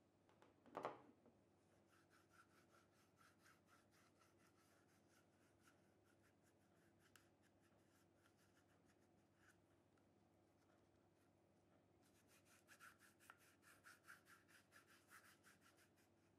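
Faint rhythmic rubbing of an alcohol-soaked pad over a Glock pistol's polymer grip frame, degreasing it, at about four strokes a second and a little louder near the end. A short knock about a second in.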